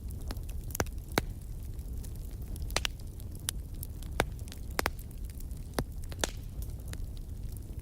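Fireplace fire crackling, with sharp pops at irregular intervals over a steady low rumble of the flames.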